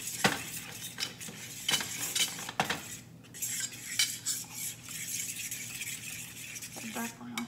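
A metal utensil stirring and scraping a thick, dark-browned flour roux around a skillet, in irregular strokes with small taps against the pan.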